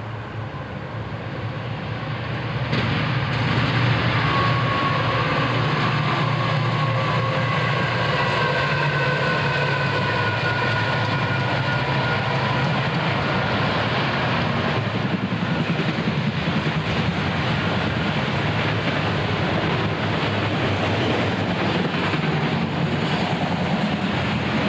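Freight train passing close by: Conrail and CSX diesel locomotives growing louder over the first few seconds, then the steady rumble of the locomotives and the autorack freight cars rolling past on the rails. A faint whine slides slowly down in pitch as the locomotives go by.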